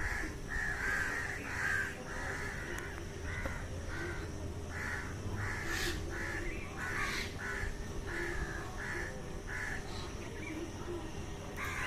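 Birds calling in a long series of short, repeated calls, about one to two a second.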